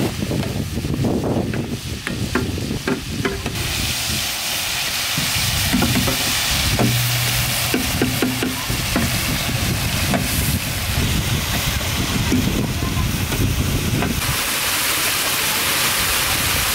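Spice paste frying in oil in a large steel pan, sizzling steadily, stirred and scraped with a long metal ladle. The sizzling grows stronger a few seconds in.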